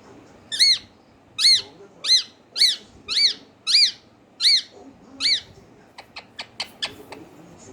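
Pet parrot giving eight short, rising-then-falling squawks about two-thirds of a second apart, followed by a quick run of sharp clicks.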